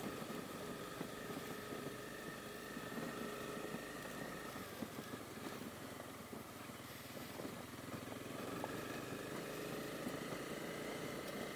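Honda CB250R's single-cylinder four-stroke engine running steadily as the motorcycle rides over gravel, with loose stones crackling under the tyres. Heard through a helmet-mounted camera microphone.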